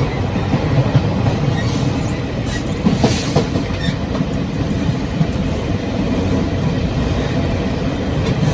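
Running noise of a Taiwan Railway Chu-Kuang Express passenger train, heard in the gangway connection between two cars: a steady loud rumble with rattles and knocks, and a sharper knock about three seconds in.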